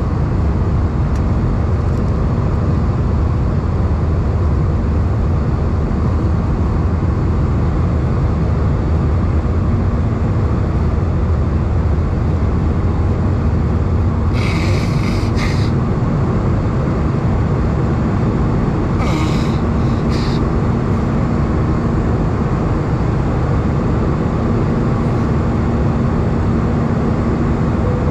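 Steady in-flight cabin noise of an Airbus A320 heard from a window seat over the wing: an even, low rumble of engine and airflow with a faint steady hum. Two brief hissing sounds about halfway through.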